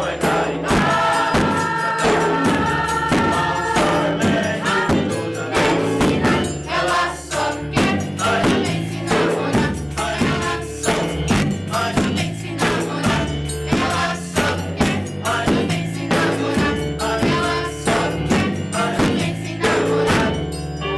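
Music played by an ensemble: a group singing over instruments, with a steady beat of about two strokes a second.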